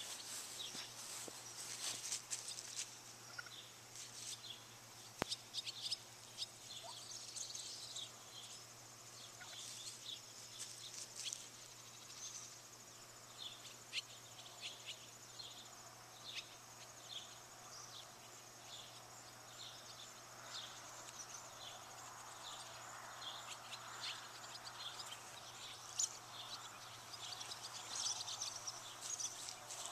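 Outdoor evening ambience of small birds chirping in many short, quick high notes. A thin, steady high insect trill runs underneath for a stretch in the middle.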